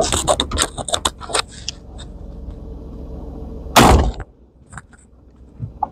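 One shot from a Stevens Model 94 single-shot shotgun, a sudden loud blast about four seconds in. Before it, a quick run of clicks and knocks as the gun is handled, over a low vehicle rumble.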